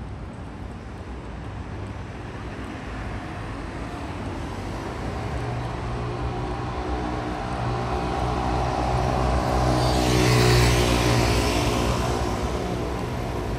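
A road vehicle passing on a city street: its engine and tyres grow louder for about ten seconds, are loudest about ten seconds in, then begin to fade.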